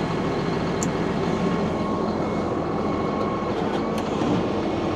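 Claas 850 tractor engine running steadily at idle, with a couple of faint clinks.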